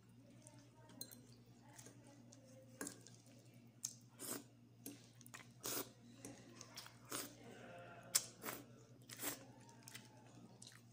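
Close-up eating sounds: chewing and crunching of noodles and a crisp flat cracker, with a string of short sharp clicks and smacks, busiest in the middle. A low steady hum runs underneath.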